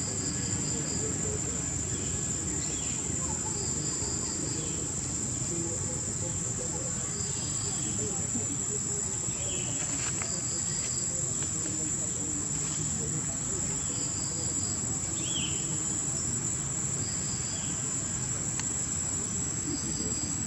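Steady, high-pitched drone of insects, with a short pulsed chirp repeating every few seconds and a few brief, faint squeaks.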